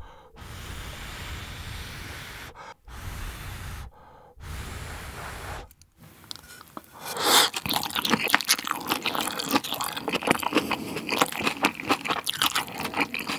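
Close-miked eating of spicy grilled pork belly with seasoned green-onion salad. The first six seconds hold three stretches of steady breathy noise. About seven seconds in comes a big bite, then rapid wet, crunchy chewing to the end.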